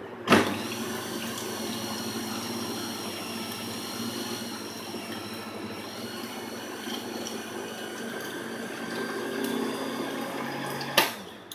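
Electric meat grinder switched on with a sudden start, its motor running steadily with a high whine as it grinds chunks of raw beef into mince, then switched off about eleven seconds in.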